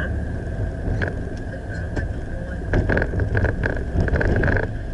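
A vehicle travelling on a highway: steady low road and wind rumble, with a cluster of crackling ticks about three seconds in.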